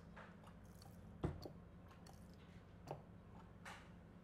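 Faint handling noises of a golf club grip being fitted onto a wedge shaft: one sharp knock just over a second in and a couple of softer taps later, over a low steady hum.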